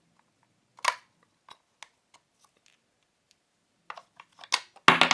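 Clicks and clatter of AAA batteries being pressed into the plastic battery compartment of a small alarm clock. There is a sharp click about a second in, then a quick run of clicks that builds to a louder rattle near the end.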